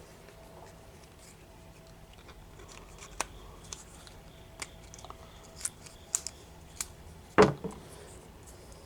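Scattered small clicks and taps of hydraulic cylinder parts being handled while a new seal is worked onto the piston by hand, with one louder knock about seven seconds in.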